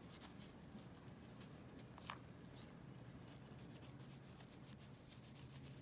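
Faint rubbing and scratching as a magazine's insert and floor plate are wiped clean, with a small click about two seconds in.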